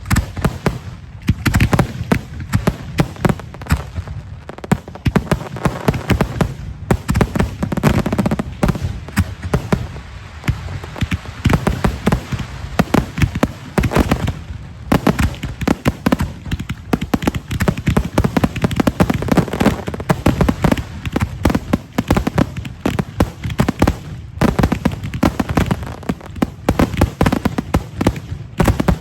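Professional fireworks display going off: a dense, unbroken run of bangs and crackling reports, many per second.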